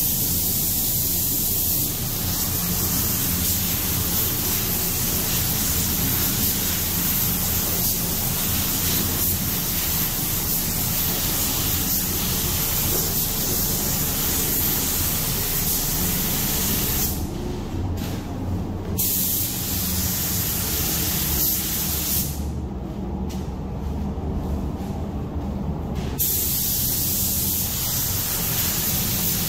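Gravity-feed paint spray gun hissing steadily as it lays a light-to-medium coat of black urethane paint. The hiss cuts out twice, briefly about two-thirds of the way in and for a few seconds soon after, then resumes.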